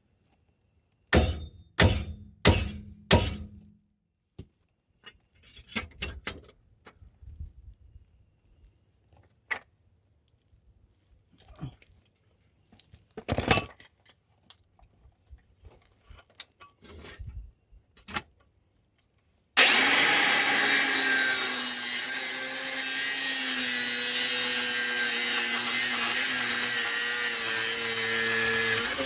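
Four hard metal-on-metal strikes, then scattered knocks and clanks while working on a CV axle seized in its wheel hub. About two-thirds of the way in, a handheld power tool starts and runs steadily under load, cutting the seized axle.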